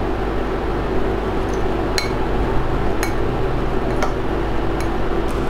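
Metal spoon clinking lightly against a glass bowl as it stirs a dry, coarse mixture, a few clinks about a second apart, over a steady background hum.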